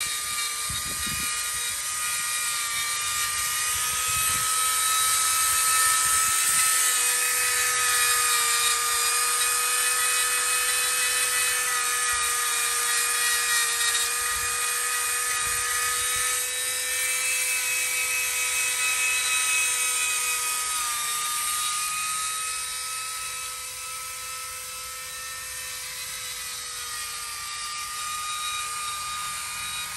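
Makita electric die grinder running at high speed with a steady whine, its bit carving into the wood of a fig bonsai trunk. The pitch wavers slightly, and the sound grows somewhat quieter in the last third.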